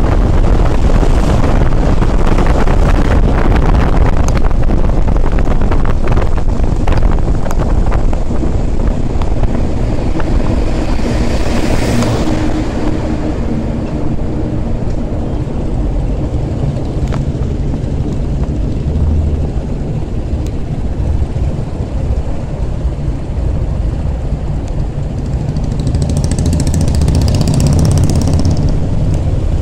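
Royal Enfield Thunderbird 350's single-cylinder engine running steadily while riding, mixed with road and wind noise on a handlebar-mounted phone. Two brief hissing surges, about a third of the way in and near the end.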